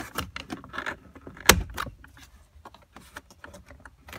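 Hard plastic center console trim panel of a 2006 Honda Civic Si being handled and worked loose by hand: scattered clicks and rubbing of plastic, with one sharp knock about one and a half seconds in.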